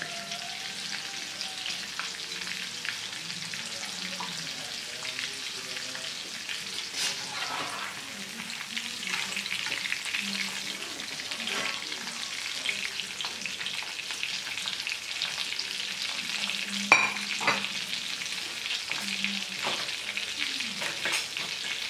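Chicken pieces deep-frying in hot oil in a kadai: a steady sizzle with many small crackles, as the pieces are turned with a slotted spatula and lifted out with a wire strainer. A sharp knock about seventeen seconds in.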